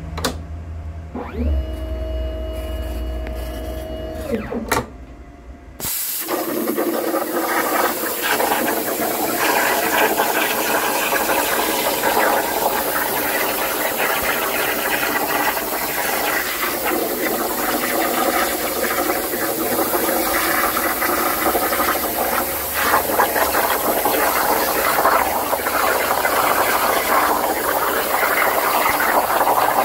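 CNC plasma cutting table at work. First its drive motors whine up, hold and wind down as the torch moves into position. About six seconds in the plasma arc fires and cuts steadily with a loud hiss and a layered whine.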